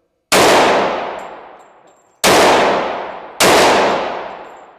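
Three pistol shots from a Glock 21C .45, the first two about two seconds apart and the third a second later, each with a long echo in the enclosed indoor range.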